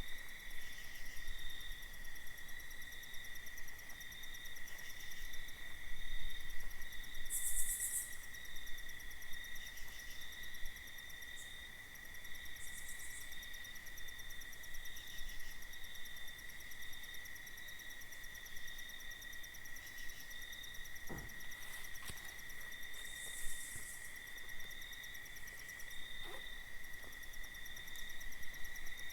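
Night insect chorus: a steady high-pitched cricket trill with faster pulsing insect calls above it. Two short hissy sounds come about a third of the way in and again late on, and a brief sound falls sharply in pitch a little after two thirds of the way.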